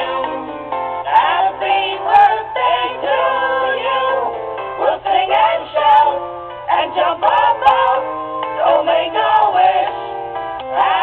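Cartoon voices singing a birthday song together to light plucked-guitar accompaniment, with a steady low hum underneath.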